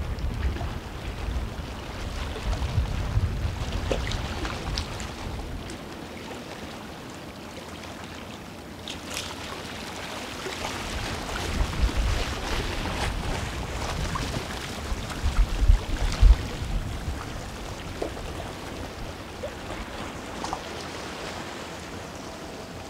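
Outdoor seaside ambience: wind buffeting the microphone in low gusts, strongest in the first few seconds and again a little past the middle, over a steady wash of sea waves.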